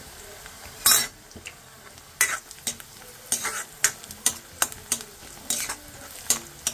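Steel spoon stirring chopped onions frying in oil in a kadhai: a steady low sizzle with sharp, irregular clinks and scrapes of the spoon against the pan, starting about a second in.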